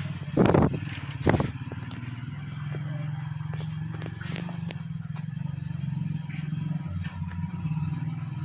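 A steady low hum, with two loud, brief noises in the first second and a half and a few faint ticks later on.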